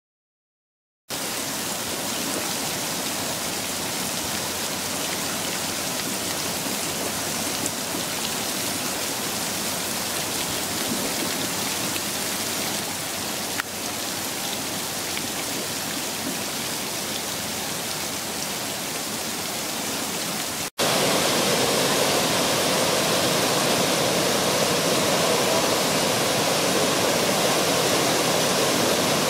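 Garden fountain water splashing in a steady rush, starting suddenly about a second in. About 21 s in it cuts to a louder, steady pour of a water cascade.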